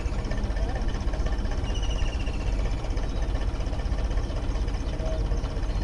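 Tractor's diesel engine running at a steady idle, a low continuous rumble. A brief high chirping trill comes in about two seconds in.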